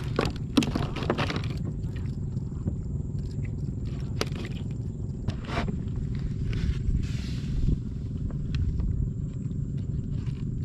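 Scattered knocks and scrapes on a plastic kayak's deck as a freshly caught tilapia is handled, over a steady low rumble.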